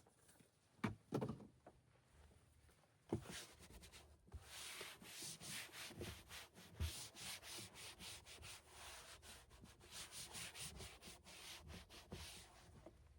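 A few light knocks, then a long run of quick rubbing strokes, about three a second, which stops near the end.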